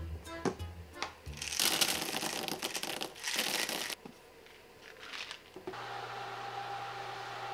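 Parchment paper crinkling loudly for about two seconds as it is handled to line a tart shell for blind baking. A steady low hum sets in near the end.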